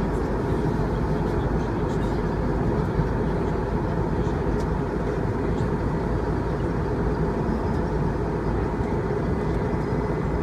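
Steady cabin noise of an Airbus A319 airliner in cruise flight, heard from inside the cabin: an even rush of engine and airflow noise, heaviest in the low and middle range.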